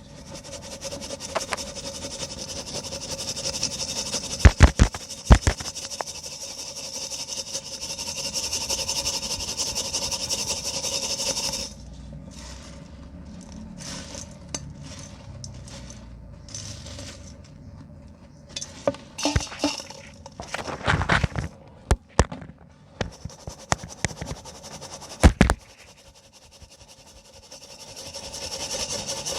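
Pure cement being crumbled and scraped by hand, a steady gritty hiss for about the first twelve seconds. Then come scattered cracks and knocks of pieces breaking, several sharp loud ones past the middle, before the gritty scraping returns near the end.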